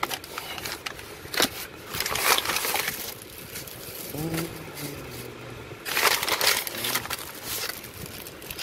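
Thin plastic takeout bag rustling and crinkling in several bursts as hands rummage in it, ending with the crackle of a cellophane cracker packet being pulled out.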